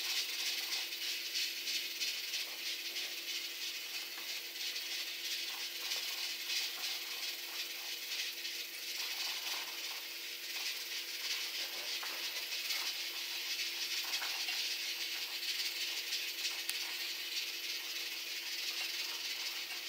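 A steady hiss with a faint steady hum underneath, and faint scattered clicks and scrapes of a plastic spoon in a ceramic bowl as a baby is spoon-fed.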